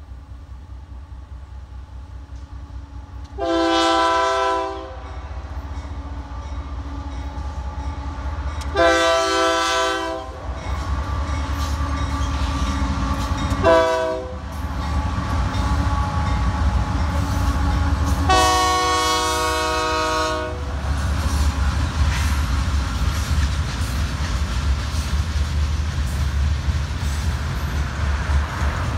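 Freight locomotive's air horn sounding the grade-crossing signal: two long blasts, a short one and a final long one. Under it the low rumble of the approaching train grows louder as the locomotive passes, then loaded ballast hopper cars roll by with a steady rumble and clicking over the rail joints.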